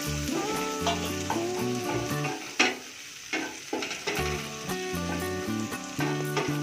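Chopped onions sizzling in hot oil in a kadai, stirred and pushed around with a spatula, under background music. One sharp knock comes a little over two and a half seconds in.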